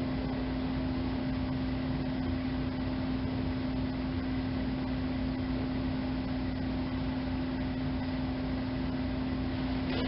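Steady electric hum from a running fiber optic lamp's colour-changing motor: one constant low tone over an even hiss.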